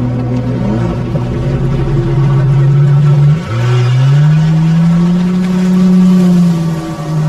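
Yamaha jet ski engine running steadily, then revving up about three and a half seconds in as the craft pulls away. The pitch rises, holds high, and drops back near the end.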